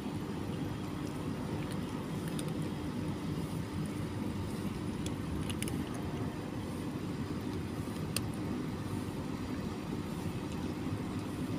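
Steady low background rumble with a faint constant hum, and a few faint sharp clicks.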